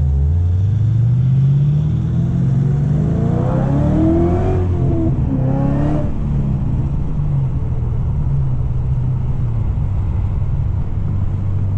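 Car engine accelerating under a burst of throttle: its pitch climbs for about four and a half seconds, drops at a gear change, climbs briefly again and drops at a second change about six seconds in, then settles to a steady cruise.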